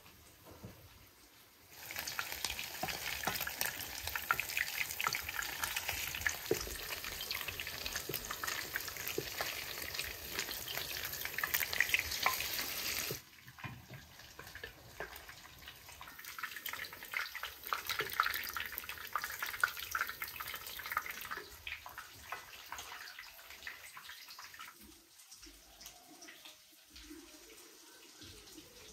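Liver fritters frying in hot oil in an enamel pan, a dense sizzle full of crackles. It starts about two seconds in, drops abruptly around halfway, then goes on quieter and thins out toward the end.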